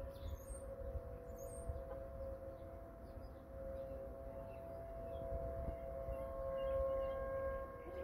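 Outdoor tornado warning sirens sounding for a tornado drill: a faint, steady wail held at one pitch that dips about three seconds in and swells again toward the end. Birds chirp faintly over it.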